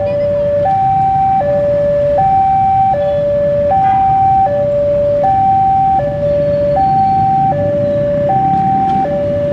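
Railway level crossing warning alarm sounding for an approaching train: two steady electronic tones alternating high-low, each held about three-quarters of a second.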